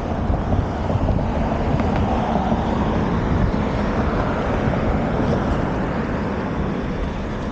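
Steady rushing noise of riding a bicycle: wind on the camera's microphone and rolling noise, swelling through the middle and easing near the end.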